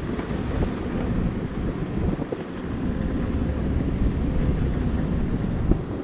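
Diesel engines of several hydraulic excavators at work, a steady low rumble, with wind buffeting the microphone and a faint knock or two.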